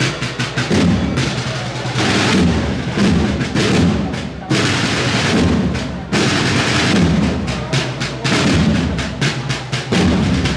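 Music with drums beating in a steady rhythm.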